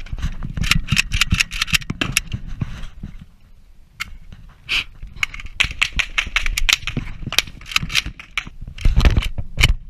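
Rapid metallic clicking and clattering of a Kalashnikov-pattern rifle being stripped and worked by hand to clear a round stuck in the breech, with a brief lull partway through. A few heavier thumps stand out near the end.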